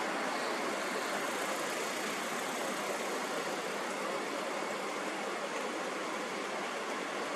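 Steady, even rushing noise, thin in the bass, with no rhythm, pitch or breaks.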